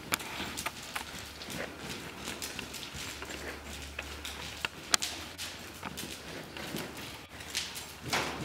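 Pony's hooves trotting on arena sand: a running rhythm of soft thuds and clicks, with one louder click about five seconds in.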